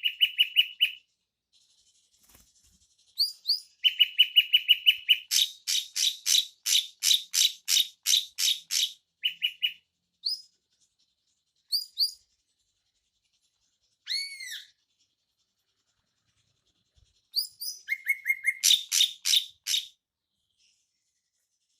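Drongo calling: phrases of rapid, evenly repeated sharp chirping notes, about five or six a second, broken by short pauses. A few slurred, arching notes come about two-thirds of the way through.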